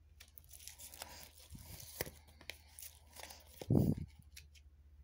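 Tarot cards handled on a satin cloth: papery rustling and sliding from the deck and the laid-out cards, with a few soft clicks as cards tap down. A short, low thump about four seconds in is the loudest sound.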